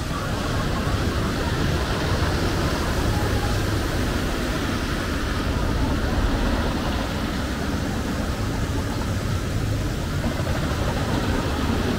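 Lightning Racer wooden roller coaster train rumbling along its wooden track, a low, steady rumble that swells slightly toward the end as it comes closer.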